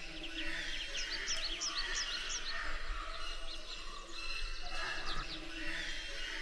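Small birds chirping in many quick, high chirps over steady background noise.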